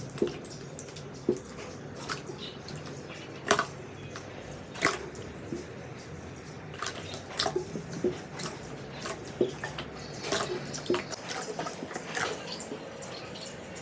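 Slime being squeezed and pressed by hand: irregular wet pops and clicks, coming more often in the second half.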